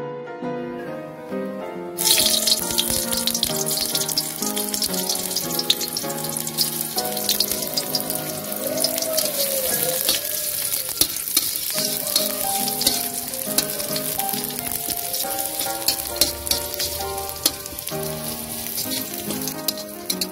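Chopped shallots frying in hot oil in a wok, a steady sizzle full of small crackles that starts about two seconds in, over instrumental background music.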